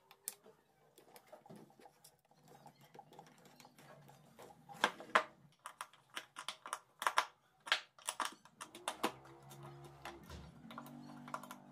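Irregular sharp metallic clicks and knocks of a wrench tightening the axle bolts on wooden wheels, loudest in the middle. Background music with plucked guitar comes in near the end.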